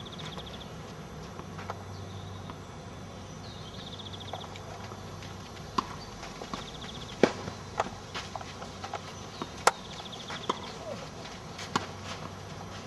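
Tennis ball struck by rackets during a rally: a series of sharp pops a second or so apart, starting about six seconds in. A bird's short trilling call repeats every few seconds behind it.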